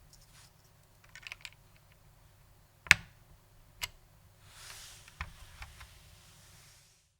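Scattered single key presses on a Matias Quiet Pro mechanical keyboard with dampened Alps-clone switches: a few soft clicks, one sharp louder click about three seconds in and another about a second later, a brief soft rustle, then a few more clicks before the sound cuts off abruptly.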